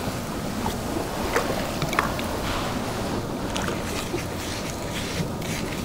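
Water poured onto granular fish-meal bait in a plastic bowl, then the wet crumbs worked by hand, under a steady background hiss with a few faint clicks.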